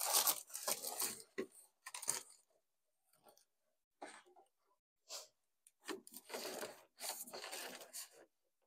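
Balloons being handled and fitted into an arrangement: irregular rustling and crinkling in short bursts, busiest at the start and again near the end, with pauses between.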